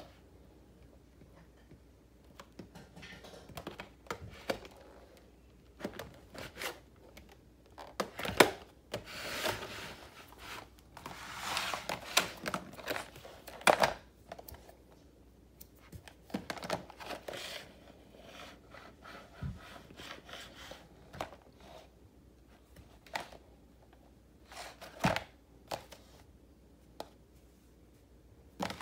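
Hard plastic blister packs of hand tools handled and shifted on a wooden floor: irregular crinkling and rustling with sharp clicks and knocks, the loudest about 8 and 14 seconds in.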